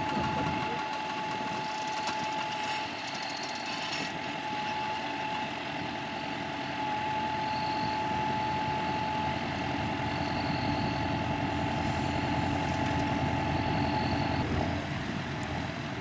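John Deere 5100R tractor's diesel engine running steadily under load while pulling a two-furrow reversible plough through the soil. A steady high whine runs alongside and stops about a second and a half before the end.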